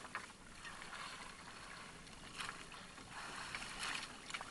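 Sea water splashing and dripping as a wet fishing net is hauled by hand over the side of an outrigger boat, with a few brief louder splashes about halfway through and near the end.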